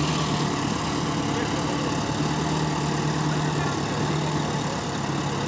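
Diesel tractor engine running at a steady speed, with an even low hum.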